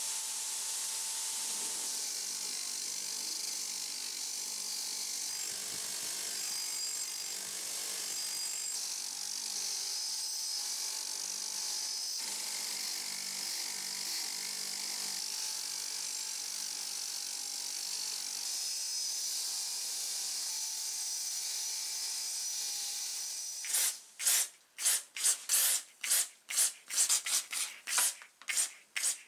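Bench grinder's wire wheel spinning, with the steel head of an old hammer held against the wire brush to scour off rust: a steady hiss over the motor hum. Near the end this gives way to a run of short, regular hissing bursts, about two a second, from an aerosol can sprayed through a thin straw for rust protection.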